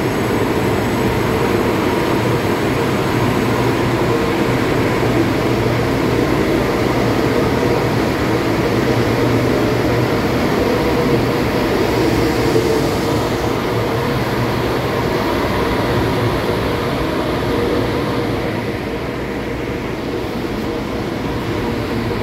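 Taiwan Railway E500 electric locomotive (E501) and its six push-pull coaches pulling out and rolling past at close range: a steady rumble of motors and wheels on rail that eases off near the end as the train draws away.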